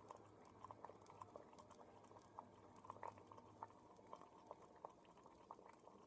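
Water boiling gently in a glass test tube heated over an alcohol burner, with a boiling rod in it: faint, irregular little pops and ticks of bubbles, several a second. The boiling rod keeps the boil even, so the water does not spurt or splash.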